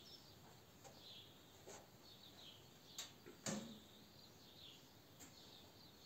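Near silence with faint bird chirps in the background. A sharp click comes about three seconds in and a louder knock half a second later.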